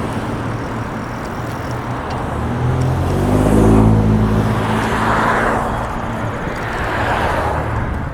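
Road traffic heard from a moving car: steady engine and tyre noise, with an engine note swelling to its loudest about three to four seconds in, then easing off.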